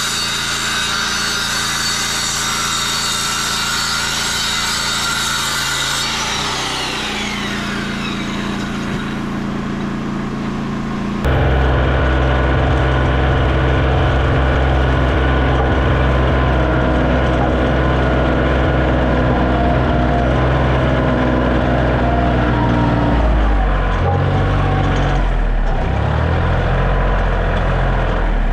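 A circular saw running with a steady high whine, then spinning down with a falling whine. About eleven seconds in, a compact tractor's engine takes over, running steadily while carrying a log on its front loader, its pitch shifting a few times near the end.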